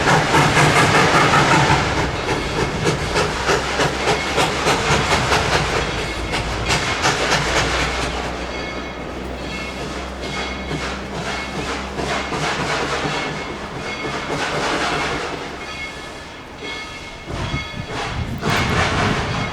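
Steam tank locomotive running in reverse, its exhaust chuffing in a steady beat of about two a second that fades as it moves away, leaving a softer rumble and hiss of the passing train.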